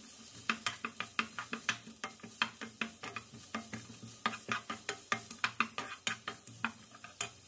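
Wooden spatula tapping and scraping against a nonstick frying pan while stir-frying julienned carrots in a little olive oil: a quick, irregular run of light clicks, several a second.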